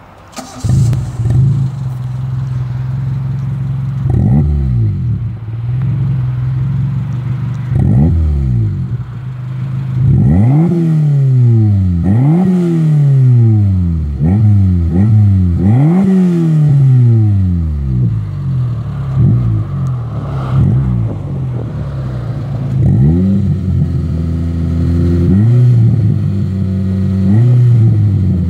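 Suzuki Swift 1.3 8-valve four-cylinder engine, heard at the exhaust tailpipe, starting about half a second in and then idling. It is revved over and over, each blip rising in pitch and falling back to idle, with the blips coming in quick succession from about ten to seventeen seconds in.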